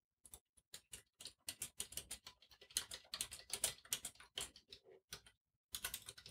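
Typing on a computer keyboard: a fast, uneven run of key clicks as a sentence is typed, with a brief pause a little past five seconds in.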